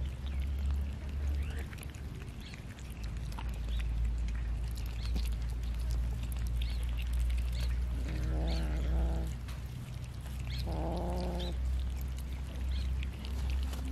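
Cats eating raw chicken, with many small chewing clicks, while a cat gives two low, drawn-out growling cries over the food, each about a second long, the first about eight seconds in and the second a couple of seconds later.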